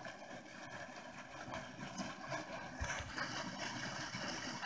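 Faint steady splashing of a pond's aerator fountain, with a few low thumps from about three seconds in.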